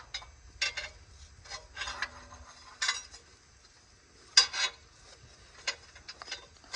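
Irregular metallic clanks and clicks as a transmission is lowered out from under a truck, the loudest pair about four and a half seconds in.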